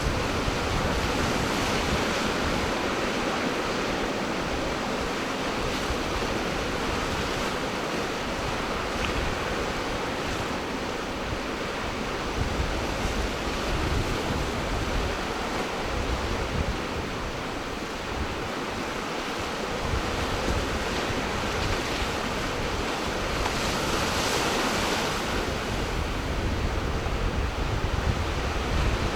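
Ocean surf washing steadily against the shore, with wind rumbling on the microphone. The wash grows brighter and a little louder near the end as a larger wave breaks.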